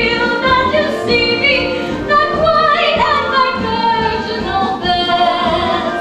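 A woman singing a musical-theatre song with orchestral accompaniment.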